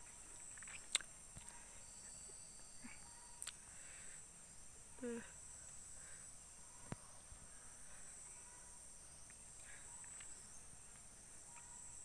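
Faint outdoor ambience dominated by a steady high-pitched insect drone, with a few soft clicks and one short voice-like sound about five seconds in.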